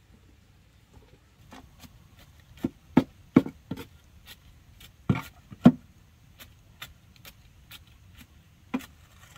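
A series of irregular knocks and taps, with several sharp louder ones between about two and six seconds in, another near the end, and fainter taps in between.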